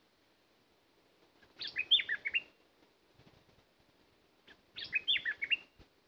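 A bulbul singing two short, bubbly phrases of quick whistled notes, about three seconds apart.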